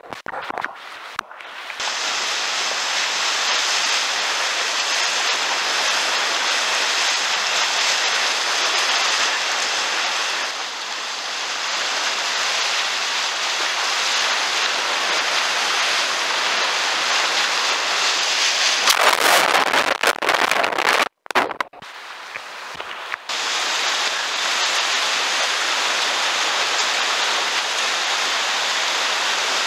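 Whitewater rushing and splashing steadily around a kayak running a river rapid. The sound is thinner for the first couple of seconds, swells into louder splashing about two-thirds through, then cuts out for a moment and stays low for a second or two before the rushing returns.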